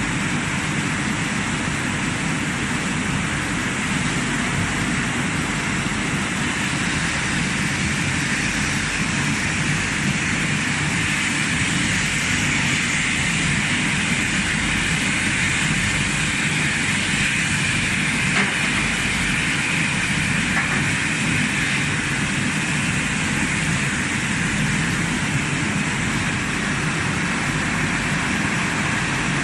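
Automatic plastic crate washing and drying machine running: a steady, even rushing noise with no breaks.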